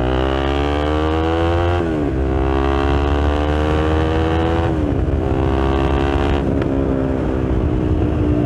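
KTM Duke 390's single-cylinder engine, fitted with an aftermarket BlackWidow exhaust, pulling hard through the gears. The revs climb, drop at upshifts about two and five seconds in, then hold fairly steady and ease off slightly near the end.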